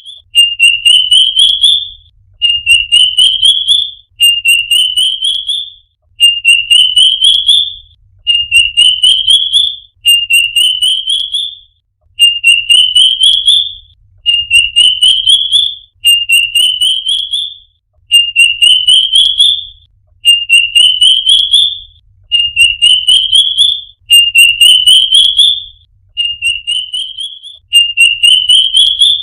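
A bird singing: a quick run of whistled notes that climbs in pitch, repeated about every two seconds.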